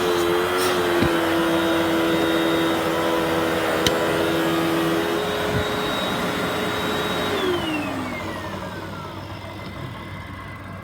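Hoover WindTunnel 3 Rewind Pet Pro upright vacuum cleaner running steadily with a whine. About seven seconds in, its motor winds down in a falling whine and fades out.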